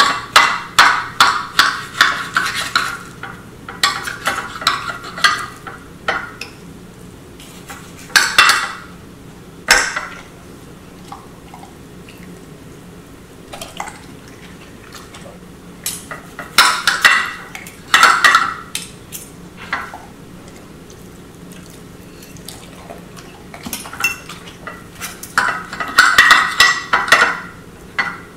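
A steak knife sawing through a raw steak on a ceramic plate in several bursts of quick strokes, with the metal knife and fork clinking and scraping on the plate; a few sharp single clinks come in between.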